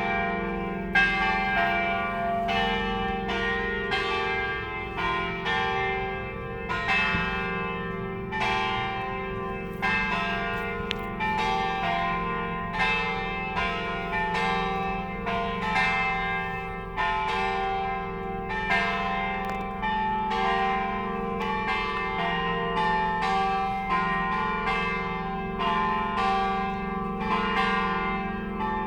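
Church bells ringing: several bells struck in turn, roughly one to two strikes a second, their tones overlapping and ringing on beneath the strikes.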